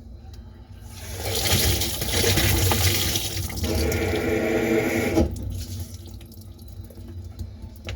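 Water running hard through household plumbing for about four seconds, taking on a steady pitched tone in its last second or so before cutting off sharply.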